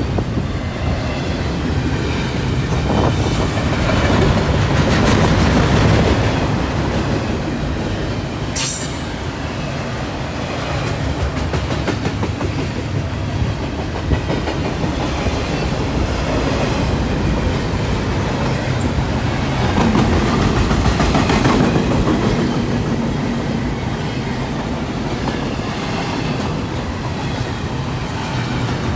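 Freight train cars rolling past, wheels clattering over the rails with faint squealing. The sound swells and eases as the cars go by, with a brief sharp high-pitched sound about nine seconds in.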